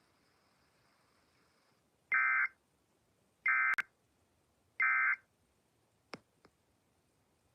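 Emergency Alert System end-of-message data tones: three short, identical bursts of the warbling digital signal, about a second and a half apart, closing out the alert. A sharp click comes right after the second burst, and two faint clicks follow near the end.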